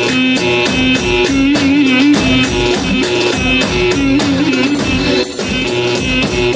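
Thracian Roman dance music, a slow ağır gayda: a steady drum beat under a pitched, ornamented melody.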